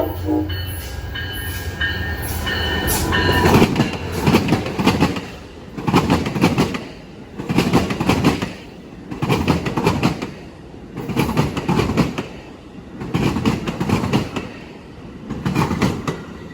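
Freight cars of a local switching move rolling slowly past, their wheels clattering over rail joints in regular bursts about every two seconds. A high steady squeal from the wheels is heard over the first few seconds.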